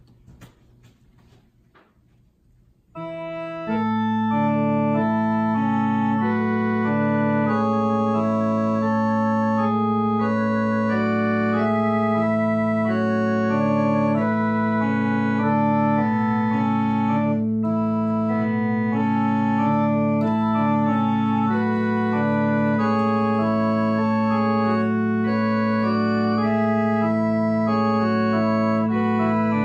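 Two-manual electronic home organ playing a slow piece that starts about three seconds in, a low note held throughout beneath moving chords.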